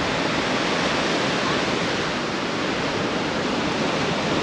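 Steady rushing noise of surf washing onto a sandy beach, mixed with wind.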